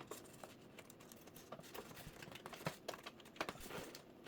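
Faint scattered clicks and rustling of cables and connectors being handled as the power and DisplayPort cables are plugged into the monitor.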